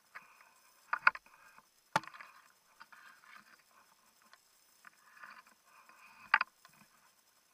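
Leafy branches brushing and rustling against the camera and clothing while pushing through dense brush, in uneven bursts, with three sharp knocks, the sharpest about two seconds in.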